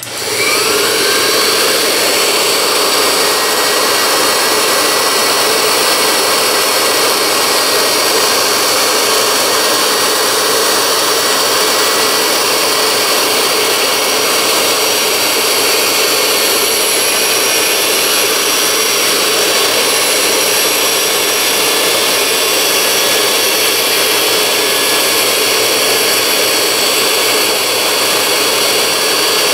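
Dumore toolpost grinder motor starting up, its whine rising to speed in the first second, then running steadily at a high whine. Its abrasive wheel grinds the 60-degree steel lathe center in light passes, throwing sparks.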